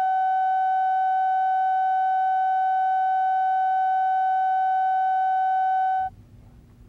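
Steady reference tone of a videotape countdown slate: a single unchanging pitch with faint overtones. It cuts off abruptly about six seconds in, leaving only faint low hum and hiss.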